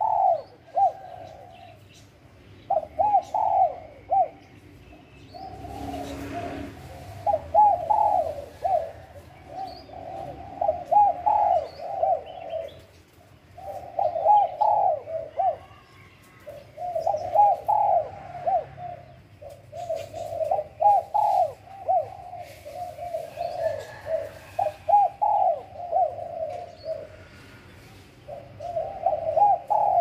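Spotted dove cooing: repeated phrases of several rolling coos, each a second or two long, with short pauses between.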